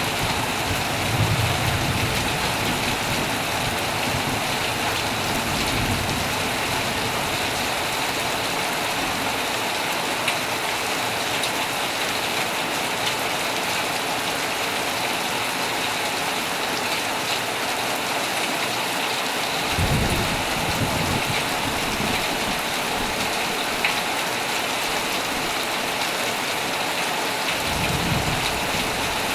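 Heavy rain falling steadily on a tent, with low rumbles of thunder at the start, around a fifth of the way in, more strongly about two-thirds through, and again near the end.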